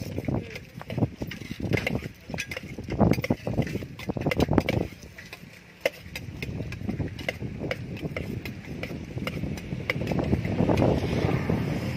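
Irregular metallic clicking and knocking as a spoon works inside a steel tumbler, mixing food, over low rumble.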